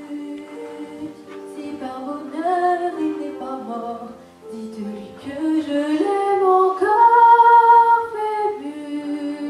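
A young female voice singing a slow melody over steady instrumental accompaniment. It builds to a loud held note about seven seconds in.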